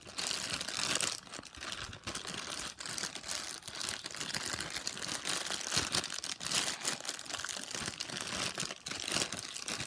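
Plastic bag crinkling without a break as a Rubik's cube is turned through it by hand, with many short sharp crackles.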